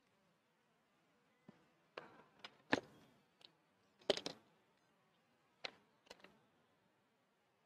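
Light knocks and clicks of hand tools and a sponge being picked up, set down and handled on a clay-covered worktable: about eight short, separate knocks at an irregular pace, the loudest near three and four seconds in.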